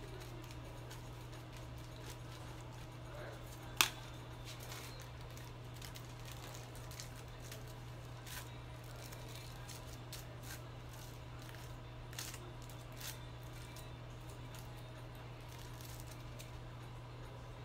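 Aluminium hair foils crinkling and clicking as they are handled and folded with a tint brush and tail comb during foil highlighting, with one sharp click just under four seconds in. A steady low hum runs underneath.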